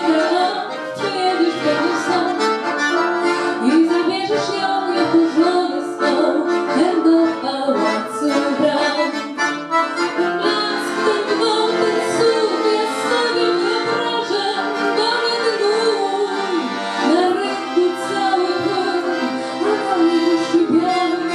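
Live folk music led by a piano accordion, with a woman singing into a microphone over it.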